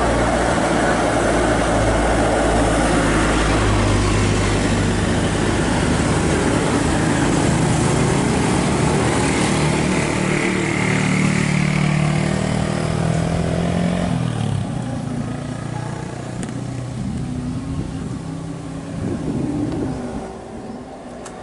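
Honda Vario 2020 scooter's single-cylinder engine running close to the microphone, its pitch rising and falling over the first fourteen seconds, then much quieter from about fourteen seconds in.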